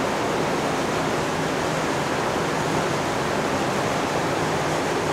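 Steady, loud rushing noise with a faint low hum beneath it, unchanging throughout.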